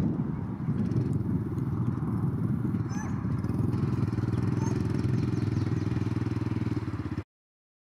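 Small engine running steadily at a constant idle, a low even hum that cuts off suddenly near the end.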